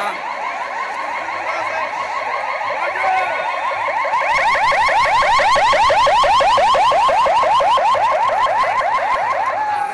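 Ambulance siren in its fast yelp mode: rapid rising sweeps, about six a second. It grows much louder about four seconds in and winds down with a falling tone near the end.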